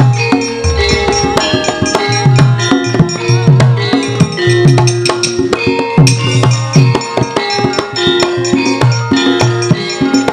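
Javanese gamelan playing a lively piece for a wayang kulit puppet scene: held ringing tones from the bronze metallophones over a driving kendang drum pattern, with frequent sharp clicks and knocks from the puppeteer's keprak and cempala.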